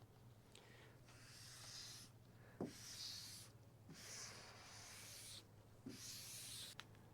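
Faint rubbing strokes of a squeegee or hand being swept over wet vinyl wrap to push soapy water out from under it, about four strokes of a second or so each with short pauses between.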